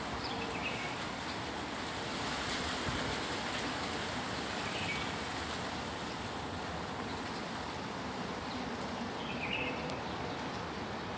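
Strong wind blowing through tree leaves in a steady rustle, with a few faint, short bird calls.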